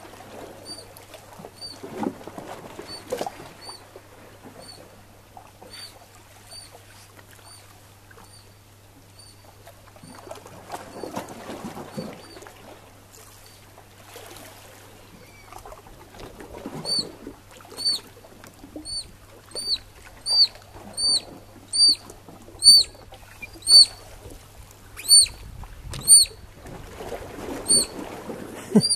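Eurasian otter pups calling: short, high-pitched whistling peeps repeated about twice a second, faint at first and much louder over the second half. Water sloshes against the rocks now and then.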